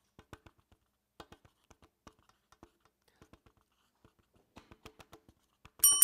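Faint, scattered clicks of typing on a laptop keyboard, then near the end a bell rings loudly with a bright, high ring.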